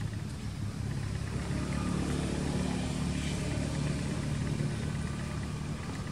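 A motor vehicle's engine passing by: a low, steady hum that builds over the first couple of seconds, holds through the middle and eases toward the end.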